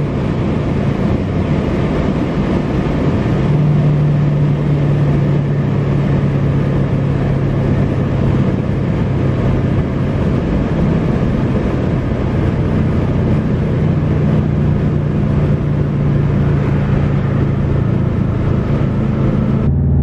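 Subaru WRX STI's turbocharged 2.5-litre flat-four, on a loud aftermarket exhaust, heard from inside the cabin while cruising at highway speed: a steady low drone over tyre and road noise.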